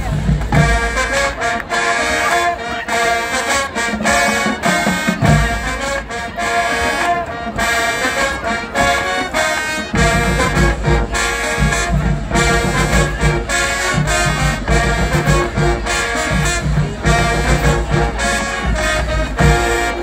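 Marching band playing a loud brass tune, with sousaphones, trumpets, trombones and saxophones over snare and bass drum beats. The bass drums come in heavily about halfway through, and the music cuts off sharply at the end.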